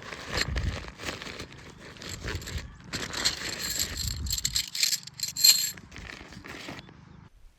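Things being handled: irregular rustling, crinkling and scraping with scattered clicks, cutting off suddenly near the end.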